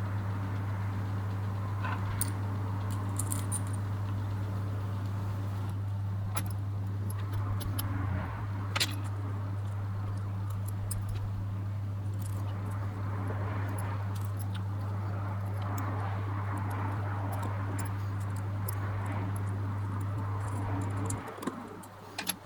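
Scattered light metallic clicks and clinks from small tools and parts being handled during a camera lens disassembly, over a steady low hum that cuts off suddenly near the end.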